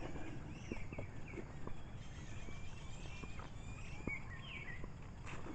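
Faint chirping of several small birds over a low outdoor background hum, with a few soft clicks.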